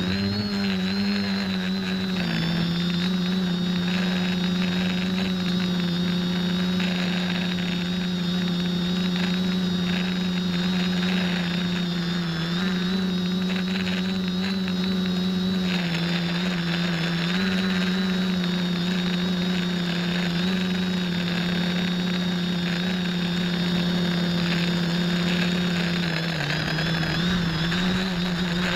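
Electric motors and propellers of an X550 quadcopter humming steadily in flight, with a thin high whine above. The pitch wavers a little and dips briefly near the end.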